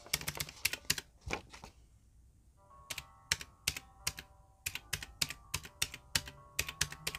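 Keys of a pink round-keyed calculator being pressed: a run of sharp, irregular clicks, a brief pause about two seconds in, then more presses as a sum is entered.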